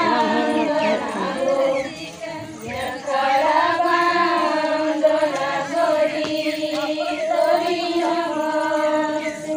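A group of women singing a Santhali Karma song together in unison, holding long, drawn-out notes, with a brief dip about two seconds in.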